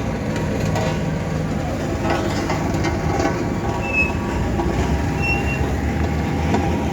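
Heavy diesel machinery running steadily, with two brief high squeaks about four and five seconds in.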